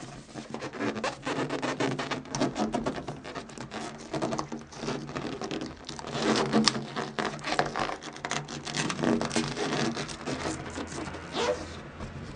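Hands working an inflated latex balloon's neck into a plastic balloon-stick cup close to the microphone: irregular rubbing, rustling and small clicks of latex on plastic.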